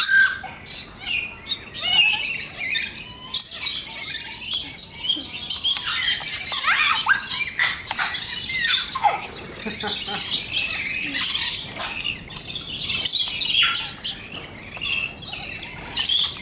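A flock of parrots chattering and squawking, with many short shrill calls and chirps overlapping.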